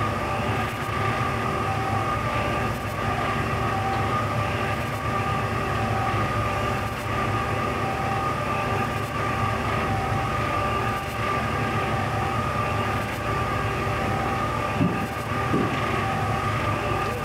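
Ship's engines and machinery droning steadily with a constant whine, as the vessel pushes through pack ice, with two short knocks near the end.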